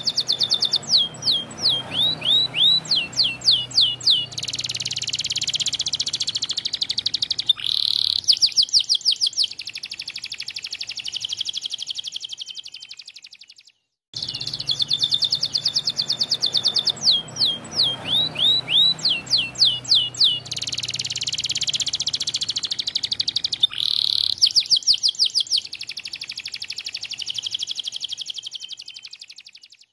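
White domestic canary singing a long, fast song: rapid repeated notes, a run of downward-sliding whistles and rolling trills that fade away. After a short silence about halfway, the same song sequence plays again.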